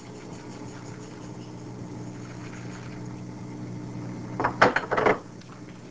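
Steady low hum, with a brief clatter of a metal cooking pan being handled about four and a half seconds in, as wheat goes into the water.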